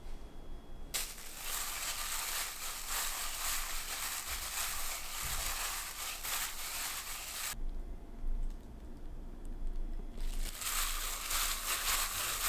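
A plastic-gloved hand tosses shredded cabbage with a sticky chili-paste sauce in a glass bowl, making a rustling crinkle of the glove and leaves. The sound comes in two spells with a pause of about two seconds between them.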